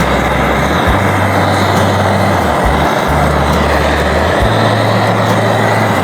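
Small stream flowing: a steady rush of water, with a low rumble that comes and goes every second or so.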